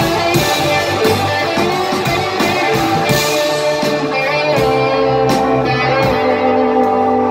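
Live rock band playing an instrumental passage: electric guitars over bass and drums, with regular drum and cymbal hits and a long held note through the second half.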